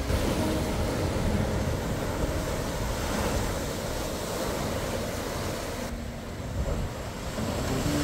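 Sea waves breaking and washing on a rocky shore, a steady rush of surf with some wind on the microphone.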